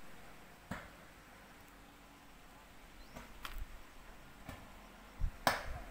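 Quiet outdoor background with a few faint, scattered knocks, the loudest about five and a half seconds in.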